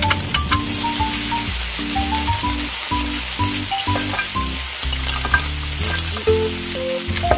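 Sauce frying and sizzling in a miniature wok while a tiny spoon stirs it, with a few light clicks. Sea snails are tipped into the pan about four seconds in.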